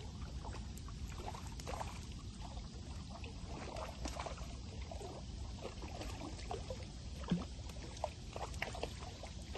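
River water sloshing and splashing at the shallows, many small irregular splashes over a steady low rumble, with a sharper splash about seven seconds in.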